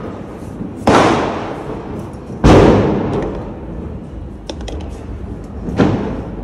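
Three loud firecracker bangs, each echoing and fading over about a second, the middle one the loudest, with a few faint crackles between the second and third.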